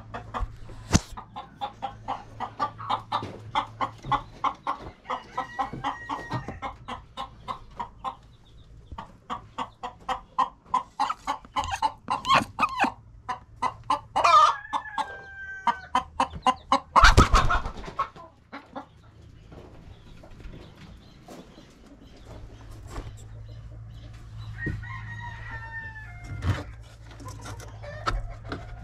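Chickens clucking in long runs of quick short calls, about four to five a second, with a brief loud noise about two-thirds of the way through and a few fainter calls near the end.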